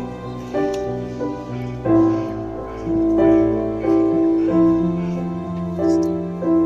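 Slow background piano music, with notes and chords struck about once a second and left to ring.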